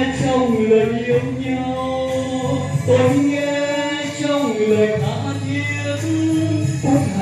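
Three men singing a Vietnamese patriotic song in harmony through microphones over a musical accompaniment, with long held notes that slide between pitches.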